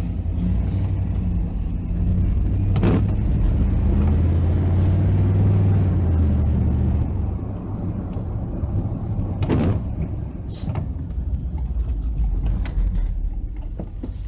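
Car engine and road noise heard from inside the cabin while driving, a low steady rumble that swells for a few seconds early on and then eases. Two sharp knocks cut through it, one a few seconds in and one just past the middle.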